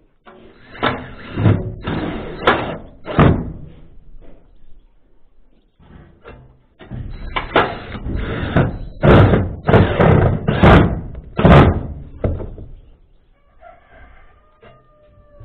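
Profiled steel sheet flashing being worked by hand at the gable: a run of loud metallic knocks and bangs, one cluster about a second in and a longer, louder one from about seven to twelve seconds in.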